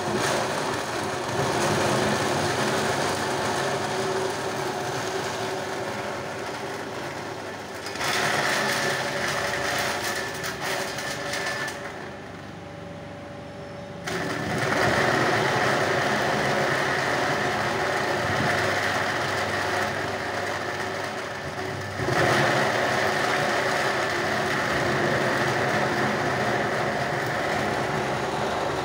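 Foam shredding machine running, its motor and cutters chewing strips of scrap foam fed into the hopper. The sound jumps louder each time a new strip goes in, three times, with a brief quieter spell near the middle.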